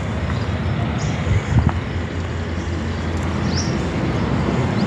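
Massey Ferguson 265 tractor's Perkins diesel engine idling steadily, with a few sharp knocks about a second and a half in.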